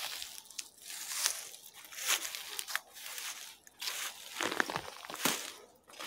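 Footsteps crunching and rustling through forest undergrowth at a walking pace, with grass and low plants brushing against the legs.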